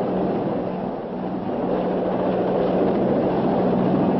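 Helicopter in flight: engine and rotor running steadily, a constant drone over a low hum.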